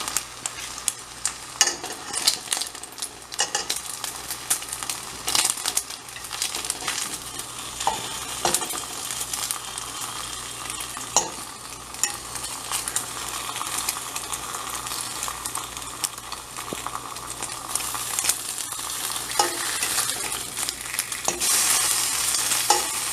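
Turkey bacon frying in a pan: a steady sizzle with frequent sharp crackling pops.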